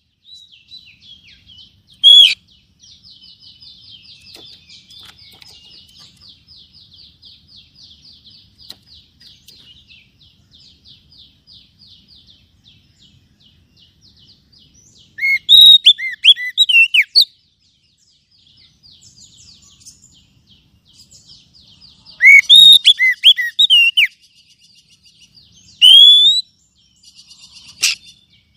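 Oriental magpie-robin (kacer) song. Two loud bursts of quick, falling chirping phrases and a few single sharp calls sound over a faint, fast, continuous trill. It is played as a lure to get a caged kacer singing.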